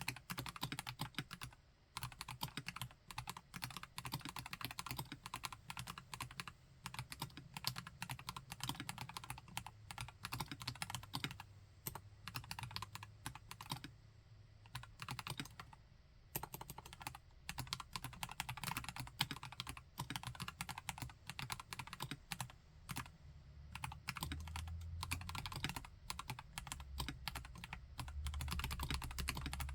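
Typing on a KLC Nori Spring Rider mechanical keyboard with Gateron Yellow Pro V2 linear switches: a continuous run of keystroke clacks, with a brief lull about halfway through.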